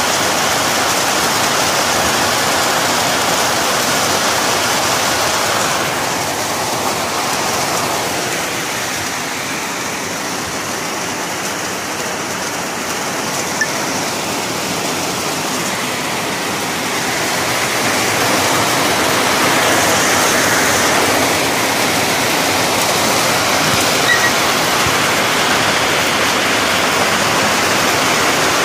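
Heavy rain falling in a steady downpour, a dense hiss of water. It eases a little in the middle and builds back up toward the end.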